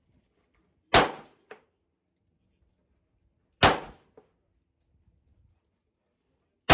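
Three 9 mm pistol shots, each a sharp crack, spaced about two and a half seconds apart, with the last right at the end. A faint click follows each shot about half a second later.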